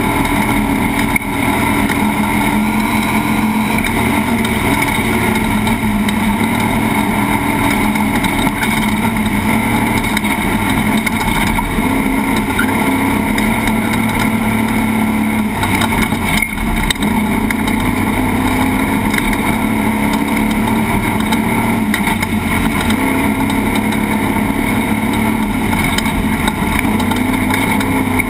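Off-road race vehicle's engine running steadily on a qualifying lap, under a constant rush of driving noise, with brief dips in level about a second in and about sixteen seconds in.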